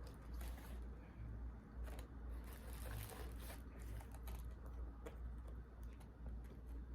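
Faint scattered clicks and rustles from handling a Chinese takeout container and utensils, over a steady low hum.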